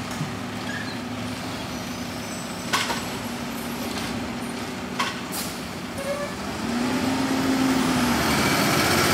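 Mack LR garbage truck engine running while the Heil Rapid Rail automated arm finishes emptying a cart, with two sharp bangs from the arm and cart about three and five seconds in. Near the end the engine speeds up and gets louder as the truck pulls forward.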